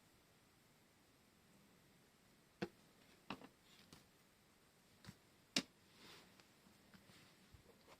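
Near silence broken by a handful of faint, sharp clicks and taps from small craft items, such as washi tape rolls and paper, being handled on a desk.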